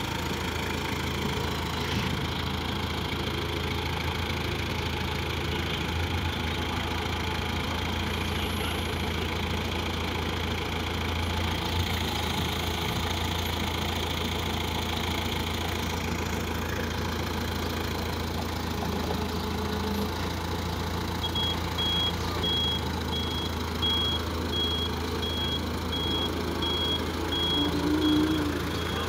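Komatsu forklift's engine running steadily as it is manoeuvred, a constant low hum. About two-thirds of the way through, a forklift reversing alarm starts beeping evenly, about one and a half high beeps a second.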